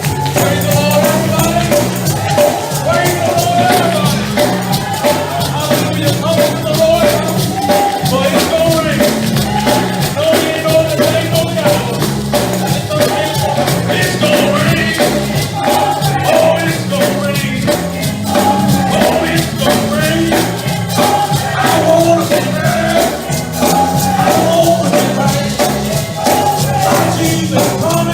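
Live gospel praise music with a tambourine shaken on a fast, steady beat over a pulsing bass line and a wavering melody.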